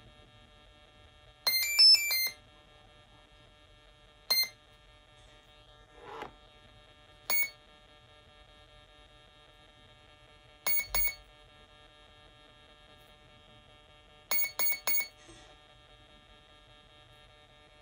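ZOHD MK2 30A ESC beeping through the plane's brushless motor in its brake-setting menu: a quick multi-note tune, then one beep, another single beep, a pair of beeps and a group of three, about three seconds apart. The number of beeps marks which brake option is on offer, from no brake to heavy.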